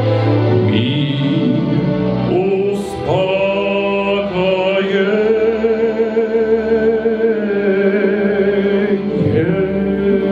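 A man singing a solo song into a microphone: long held notes that waver with vibrato, amplified in a church hall.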